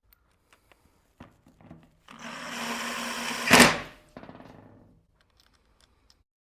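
Makita angle grinder switched on for a short test run of about two seconds after its gear head has been reassembled, getting loudest just before it is switched off, then winding down. Before it, a few light clicks and taps of handling.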